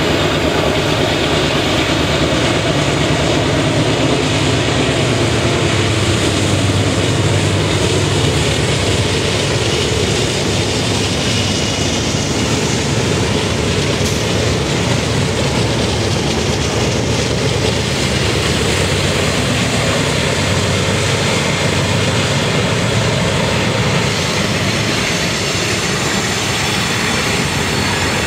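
GE C44-9W diesel freight locomotives working hard up a steep grade as they pass close by: a steady, heavy engine drone, with the rumble of the train rolling behind them.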